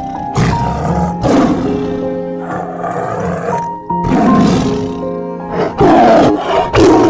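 A large wild animal giving a series of loud, rough calls, about six in seven seconds, the last ones the loudest, over soft background music with held notes.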